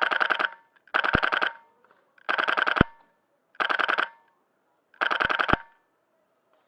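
LCT LCK-12 airsoft rifle with a Polarstar F2 HPA engine firing five short full-auto bursts, each about half a second long and about a second and a quarter apart.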